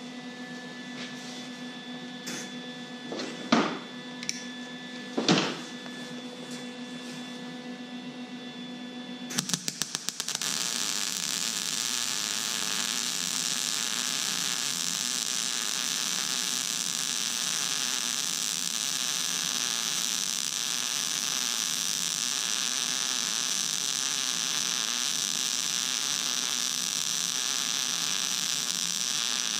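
A low hum with two sharp knocks, then about ten seconds in a Lincoln 180HD wire-feed welder strikes its arc with a quick stutter of crackles. It settles into a steady arc sizzle, laying the final fill pass on 1-inch steel.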